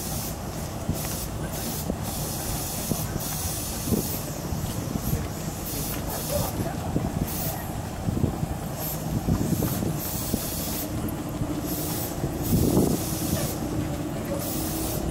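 Chichibu Railway 6000 series electric trains standing at a station platform: a steady low hum with short hisses that start and stop again and again, and a faint steady tone in the second half.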